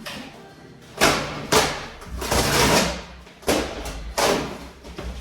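Handling noises: a series of sharp thumps and knocks, about six spread across the few seconds, with a longer scraping rustle between them.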